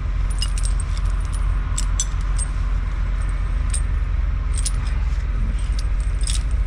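Steel tyre snow chains clinking and jangling as they are pulled and stretched out flat, in scattered clusters of sharp clinks, over a steady low rumble.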